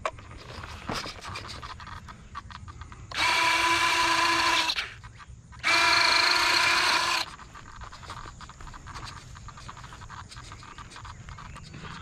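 E-flite F-16's 70 mm electric ducted fan run up twice in short blasts of about a second and a half each: a steady high-pitched motor whine over a rush of air, starting and stopping abruptly.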